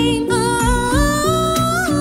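A woman sings one long held note that slowly rises in pitch over a programmed backing of low chords pulsing about four times a second.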